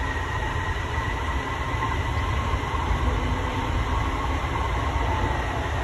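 JFK AirTrain car, a Bombardier people mover driven by linear induction motors, running along its guideway: a steady low rumble with a high, even whine from the drive above it.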